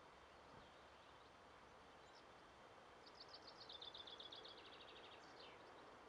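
Faint outdoor background with a songbird singing a rapid trill of repeated high notes about three seconds in, lasting about a second and a half and ending in a few short downslurred notes.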